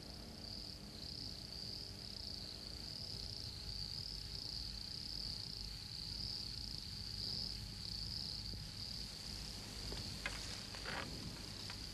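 Rainforest insects chirring in a steady, unbroken high-pitched chorus, with a few faint short sounds near the end.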